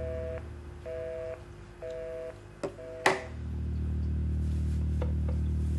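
Telephone busy signal heard down the line: a two-tone beep pulsing about once a second, four times. A sharp click comes just after three seconds, and then a low steady drone sets in.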